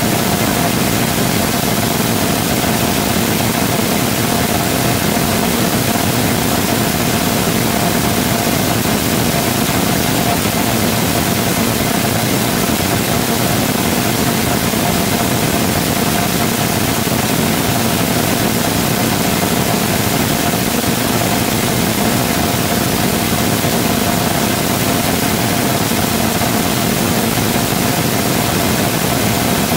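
3D-printed rotating detonation rocket engine combustor firing steadily at full burn. A loud, unbroken rushing noise with a steady tone running through it.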